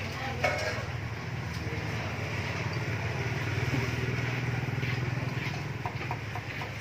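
A motorbike engine running past on the street, its low hum growing louder toward the middle and easing off near the end.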